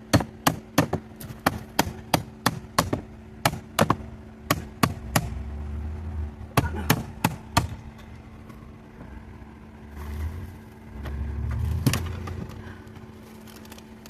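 Hammer blows on metal scrap, about two to three sharp strikes a second for the first eight seconds, then a few scattered knocks with low rumbling handling noise.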